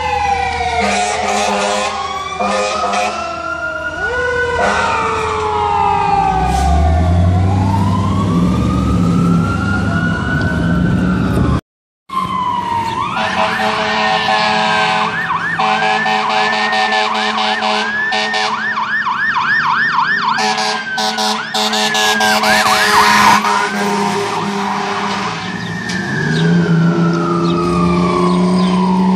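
Fire engine sirens responding: long rising and falling wails, with steady low horn tones underneath. After a short break about twelve seconds in, a second engine's siren switches to a fast yelp, then back to wails.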